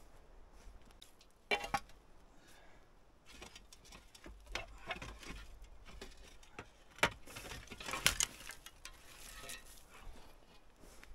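Rusty old metal pieces being handled and set down against a metal pot: several sharp clanks and scrapes, the loudest about one and a half, seven and eight seconds in, with rustling between.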